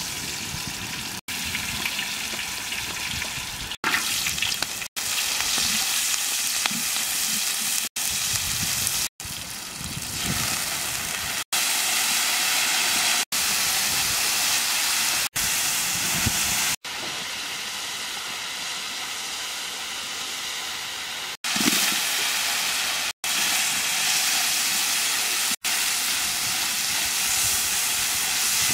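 Hot oil sizzling steadily in a large wok as sliced lemongrass, red chilies and pieces of eel fry in it. The sizzle breaks off for about a dozen brief moments of silence.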